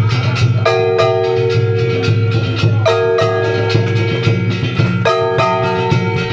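Festival float music: a quick, steady beat of drum and gong strokes under phrases of held, pitched notes that start again about every two seconds.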